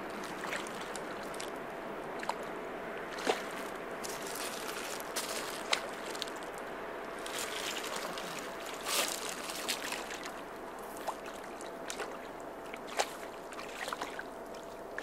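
A hooked bream splashing at the water's surface as it is played in, a handful of short separate splashes over a steady hiss.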